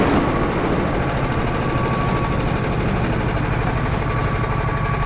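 Single-cylinder Honda GX270 four-stroke engine of a SODI RT10 rental kart running steadily at low revs, close to idle, with no revving.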